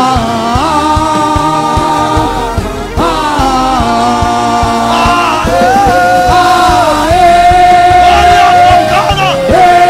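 Gospel worship music with a steady beat, its melody held in long notes that slide from pitch to pitch.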